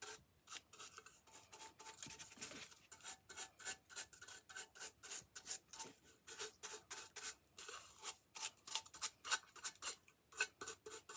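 Quick rubbing strokes against paper, about three or four a second, as the edges of a paper-covered craft piece are being grunged (distressed). The strokes pause briefly near the start and again near the end.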